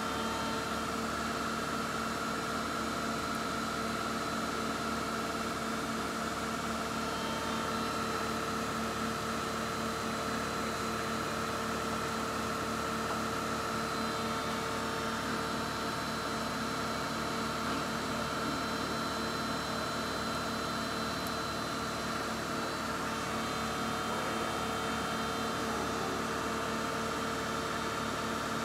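Semco VMC 1000 CNC bed mill, powered up with the spindle off, humming steadily with several steady whining tones from its drives while the axes are jogged; the higher tones shift slightly a couple of times.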